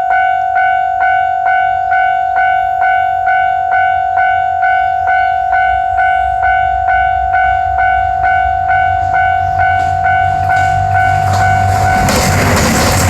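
Japanese level-crossing warning bell ringing its steady electronic 'kan-kan' at about two and a half strikes a second, while the low rumble of an approaching KiHa 187 diesel railcar limited express builds. About a second before the end, the loud noise of the train passing drowns out the bell.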